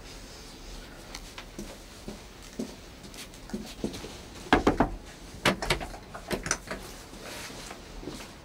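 Light footsteps on a hard floor, then three quick clusters of loud sharp knocks a little past the middle.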